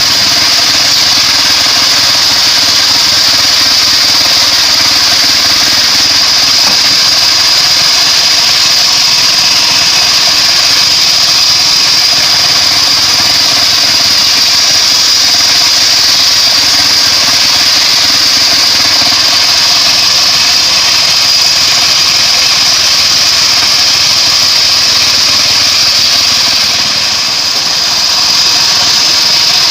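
Homemade bandsaw sawmill running steadily and loudly, a high whine riding over the engine noise; it eases slightly for a moment near the end.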